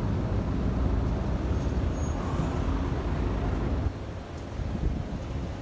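Outdoor urban background noise: a steady low rumble like distant traffic, easing off somewhat about four seconds in.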